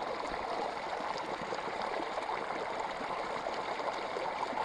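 Steady rush of running water, like a small stream or trickle, with a few faint ticks.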